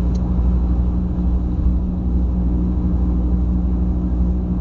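Steady low drone of engine and road noise inside a moving car's cabin, with a faint constant hum.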